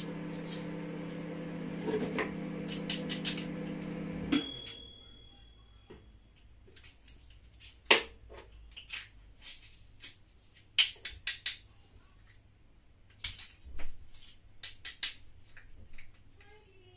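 A steady humming drone with several even tones cuts off about four seconds in, with a brief high tone as it stops. After that, a kitchen knife taps and cuts on a wooden chopping board in scattered sharp knocks as garlic and onion are cut.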